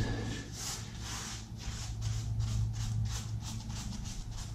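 Paint brushing on a wall: a 1-inch square polyester paintbrush rubbing back and forth in short, even strokes, about three a second.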